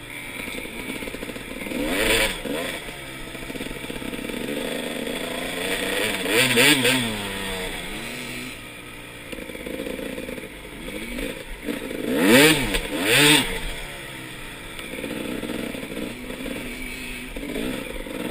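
2001 Honda CR250R's two-stroke single-cylinder engine running under the rider, its pitch rising and falling with the throttle, with four sharp revs: one about two seconds in, one midway, and two close together later on.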